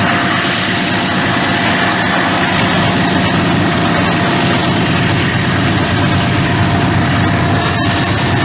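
Diesel-electric freight locomotives passing close by: a loud, steady engine drone with a constant high-pitched whine over it.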